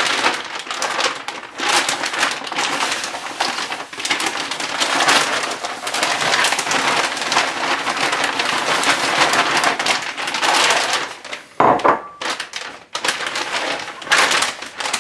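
Granular herb and curing-salt mix poured into a clear plastic bag over a wild boar leg, with the bag's plastic film rustling and crinkling as it is handled. The hiss runs on with brief breaks about four seconds in and around twelve seconds in.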